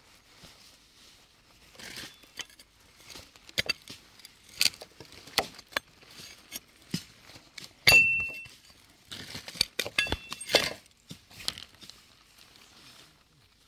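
Fingers scraping and digging in dry, stony soil, with loose pebbles clicking and knocking against each other in irregular bursts as a stone is worked loose. The loudest knock, about eight seconds in, rings briefly.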